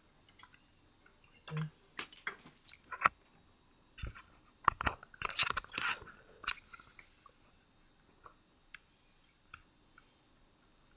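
Handling noise from a camera being repositioned by hand: a run of clicks, knocks and rubbing on the microphone for several seconds, thinning to a few faint ticks near the end.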